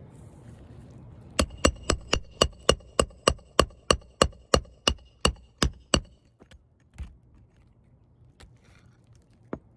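Hammer driving a nail: about sixteen quick, even strikes, roughly three a second, each with a short metallic ring, then a couple of single knocks near the end.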